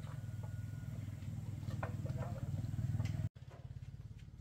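A small engine running steadily with a fast, even pulsing beat, with a few light clicks about halfway through. The sound cuts out suddenly near the end and comes back quieter.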